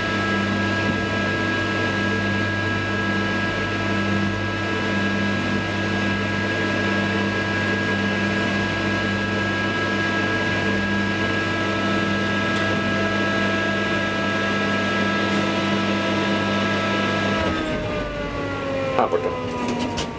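Traction elevator heard from inside a moving car: a steady electric hum with several tones. Near the end it falls in pitch as the car slows to a stop, followed by a few sharp clicks.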